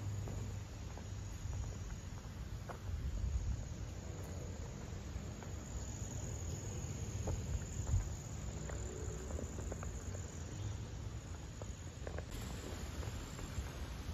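A steady, high-pitched chorus of insects chirring in the vegetation, over a low rumble of wind and handling noise on a moving handheld microphone.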